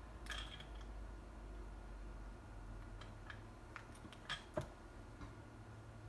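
Faint scattered taps and clicks of paper pieces and a liquid glue bottle being handled on a craft table, with two sharper taps about four and a half seconds in, over a low steady hum.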